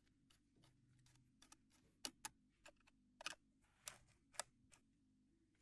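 Faint, irregular clicks and ticks of a screwdriver working the screws of a mid-2011 iMac's memory access door. The sharpest clicks come between about two and four and a half seconds in.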